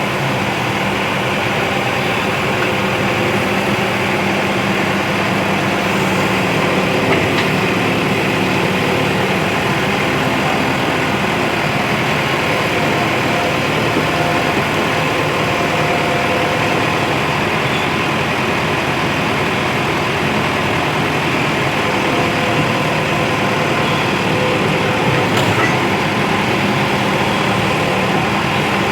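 Heavy diesel engine running steadily at a constant pace, with a couple of faint clicks.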